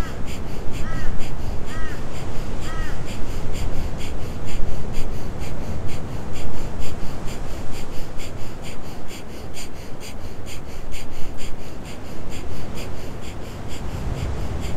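Breath of fire: short, forceful nasal exhalations in a fast, even rhythm of about three a second. A bird calls four times in the first three seconds.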